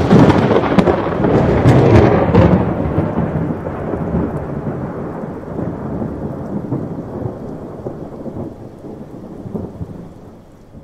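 Thunder: a loud crack with sharp crackling for the first two seconds or so, then a long low rumble that slowly dies away.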